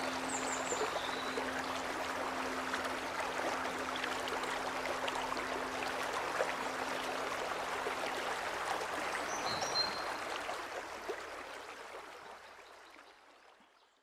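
A mountain stream running over rocks, a steady rush of water, with a few short high bird chirps near the start and again about two-thirds of the way through. The sound fades out toward the end.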